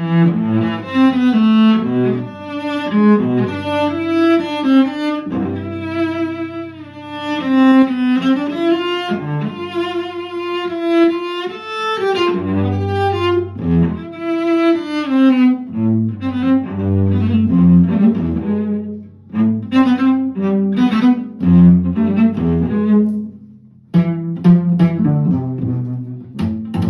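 Solo cello played with the bow, a continuous melodic passage of changing notes, with two short breaks in the phrasing, the second near the end.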